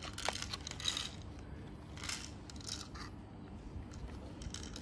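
Short bursts of clinking and rattling as a plastic toy rifle and its sling fittings are handled and turned over: a cluster in the first second, two more a couple of seconds in, and one near the end.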